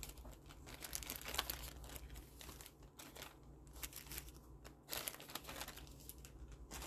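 Zip-top plastic bag crinkling irregularly as a hand rummages in it and draws out jewelry, with a sharper rustle about five seconds in.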